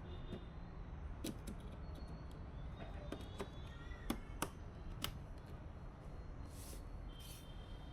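Computer parts being handled during a PC build: a few separate sharp clicks and taps of small hard parts, then a short rustle near the end, over a low steady hum.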